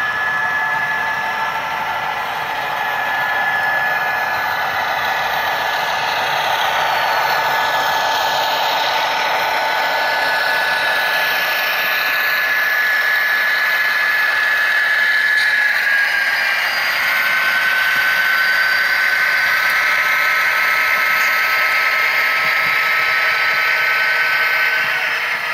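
HO scale model freight train rolling past, with a steady high-pitched mechanical whine and hiss of small motors, gears and wheels on the track. The whine drops slightly in pitch about two-thirds of the way through.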